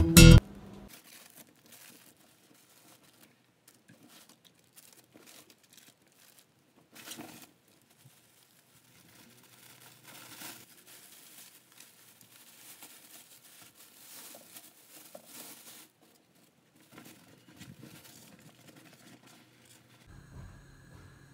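Acoustic guitar music cuts off right at the start, then quiet, scattered rustling and crinkling with small taps and clicks of something being handled.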